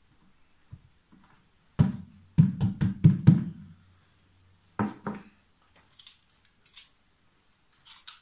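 Hollow knocks on an upturned plastic bucket as sawdust is shaken out of it into a metal bowl: one knock, then a quick run of about five, then one more, followed by a few faint clicks.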